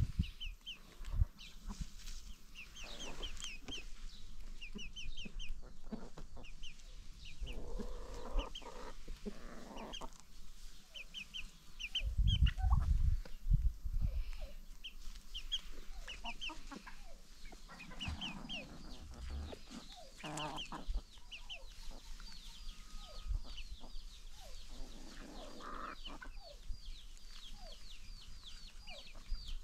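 Free-range chickens clucking softly now and then, over rapid high chirping calls that go on throughout. A louder low rumble comes about twelve seconds in.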